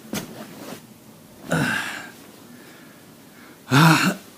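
A man's short vocal sounds: three brief exclamations or grunts that the recogniser didn't catch as words, the last one loudest, with breathing between them.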